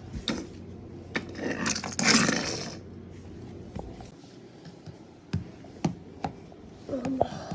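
Small toys being handled and moved about on a hard surface: scattered clicks and taps, with a louder scraping rustle about two seconds in.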